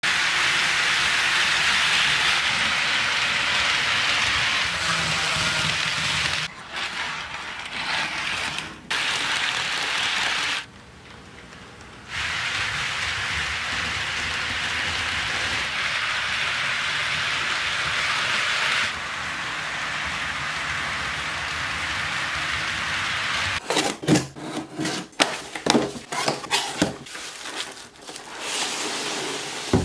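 HO-scale model trains running on track: a steady rolling hiss of wheels and motors, broken by a few abrupt changes. Near the end, a box cutter slicing the packing tape on a cardboard mailing box, a rapid string of sharp scrapes and clicks.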